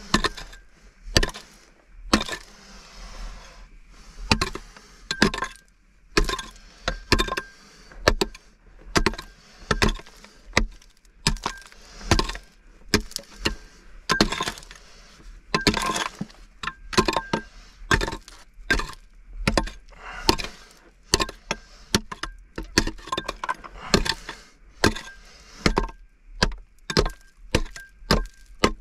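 Repeated hard blows, a little more than one a second, some coming in quick pairs, with a faint steady high tone underneath.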